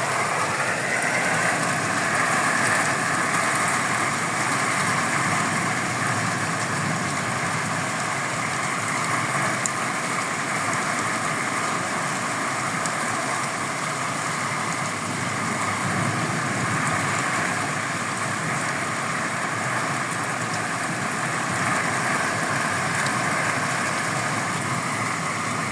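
Heavy rain pouring down in a thunderstorm: a steady, unbroken downpour.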